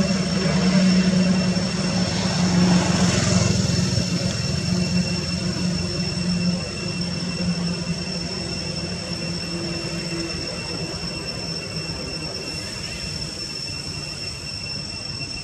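A distant engine drone, strongest at first and slowly fading away, with a thin, steady high-pitched tone running underneath.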